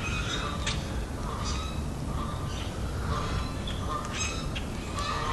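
Several short bird calls and chirps, one every second or so, over a steady low rumble.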